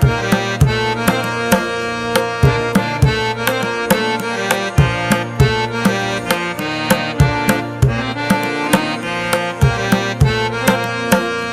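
Background music: sustained melodic tones over a steady, repeating hand-drum beat.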